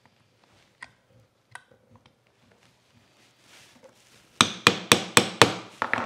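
A hammer tapping a punch to drive a pin out of the cast-iron frog of a Stanley Bedrock 604-1/2 hand plane: a few faint handling clicks, then about two-thirds of the way in five quick, sharp taps about four a second, and two more just before the end.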